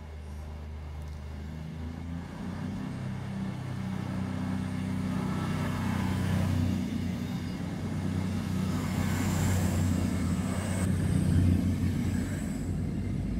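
A train moving through the station. Its low, pitched drive note shifts in steps and grows steadily louder, and a thin high whine joins it a little past halfway.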